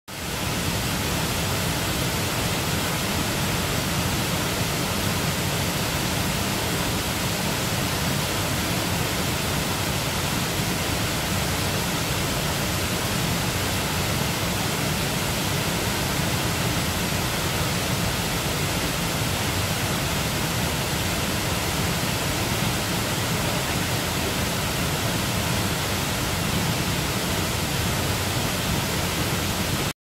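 Waterfall plunging into a pool: a steady, even rush of falling water.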